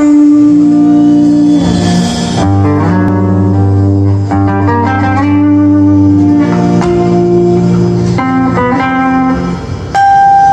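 Live band playing amplified through a stage PA during a soundcheck: guitars carrying a sustained melody over a low bass line.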